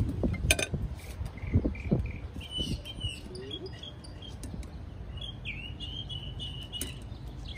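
Small birds chirping, a run of short high notes that comes thicker in the second half. A few sharp knocks in the first two seconds, as tongs set grilled meat onto a plate, over a low steady rumble.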